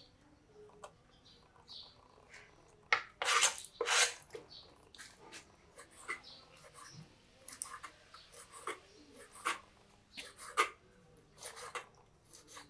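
Kitchen knife slicing goat head meat into thin strips on a thick wooden chopping board: scattered clicks and taps of the blade against the board, the loudest a few seconds in, then a run of lighter ones.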